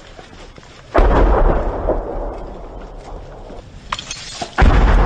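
Two heavy explosions in a firefight, about three and a half seconds apart. Each is a sudden deep boom that rolls on and dies away over a second or more, with a few faint sharp cracks between them.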